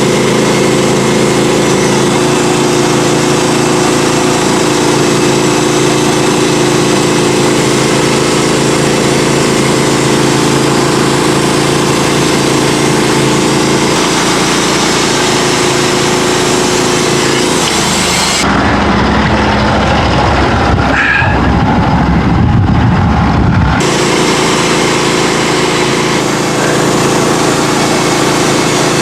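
Norwood HD38 portable band sawmill's gas engine running steadily. For about five seconds in the middle the sound changes, turning deeper and duller, then goes back to the same steady running.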